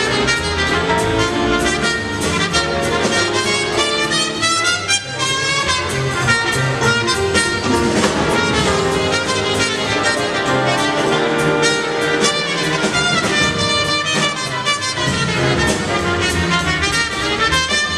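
A big band playing jazz: a brass section of trumpets and trombones over a steady drum-kit beat with cymbal strokes.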